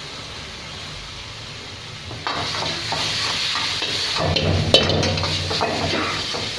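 A steady hiss for about two seconds, then fried chicken pieces sizzle loudly in a hot pan of sauce as they are stirred and tossed, with repeated metal scraping and clattering strokes.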